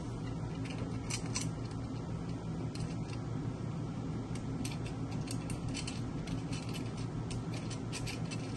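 Light metallic clicks and clinks of waffle-maker parts being handled, coming thick and fast in the second half, over a steady low hum.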